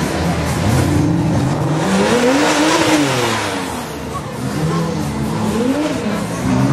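Sports car engines revving hard as they drive past. The pitch climbs to a peak about three seconds in and falls away, and a shorter rev rises and drops near the end.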